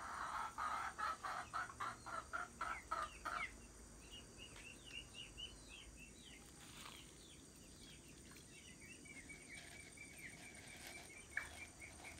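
A chicken clucking in a quick, even run of about a dozen clucks over the first three seconds, then small birds chirping faintly.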